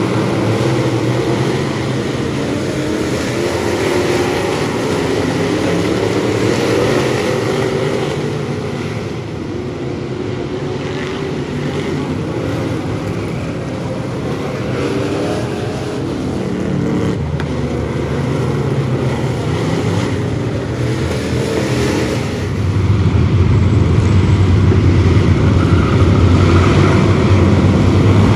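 Several dirt-track Bomber stock cars running their engines as the field circles the oval. The engines get louder about two-thirds of the way through, with a heavier low rumble as the bunched-up pack comes by.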